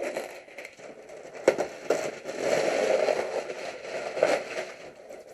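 Packaging being handled and unwrapped: crinkling and rustling, loudest in the middle, with a few sharp clicks and knocks.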